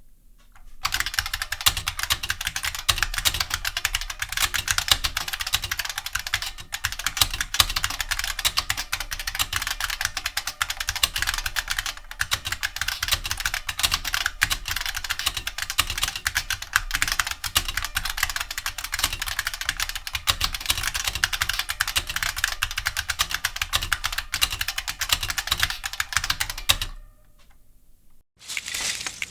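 Continuous fast typing on a Model F122 "Battleship" reproduction keyboard with capacitive buckling-spring switches: a dense, steady clatter of key presses that stops about two seconds before the end. A brief sharp noise follows near the very end.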